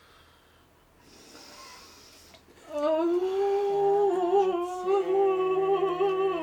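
A woman in second-stage labor pushing through a contraction: a quiet breath, then about three seconds in a long, low, closed-mouth moan held on one pitch.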